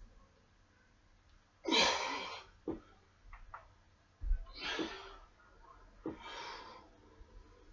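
A man breathing out hard three times, about two seconds apart, from the strain of lifting dumbbells. A low thud comes just before the second breath.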